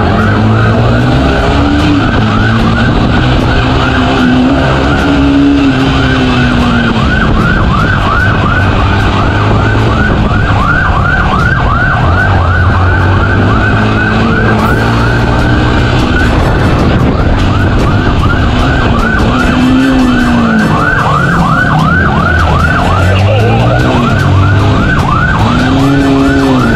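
Police motorcycle's siren on a fast yelp, about four rising-falling wails a second, over the motorcycle engine revving up and down.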